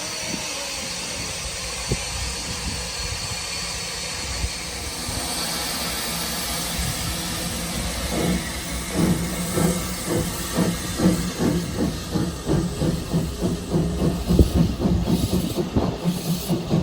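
Steam locomotive hissing steam, then, about halfway through, starting a run of steady exhaust beats about two a second as it gets under way.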